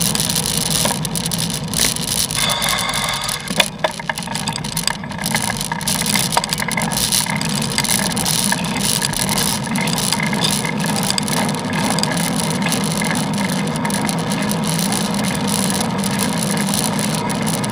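Steady wind and road noise picked up by a camera on a moving bicycle, with small rattles and knocks. A short high-pitched tone sounds for about a second, around two and a half seconds in.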